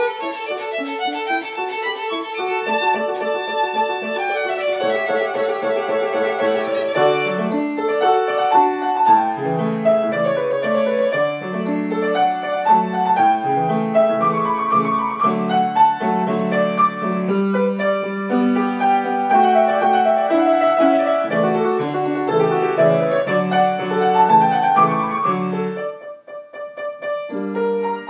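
A violin played with piano accompaniment. Some seconds in, the violin drops out and the piano carries on alone. The violin comes back in near the end.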